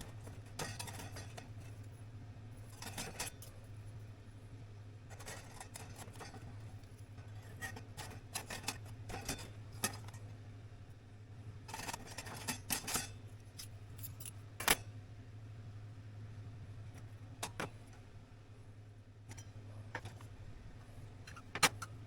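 Small metal items being handled, giving scattered light clinks and clicks, with a few sharper knocks, over a steady low hum.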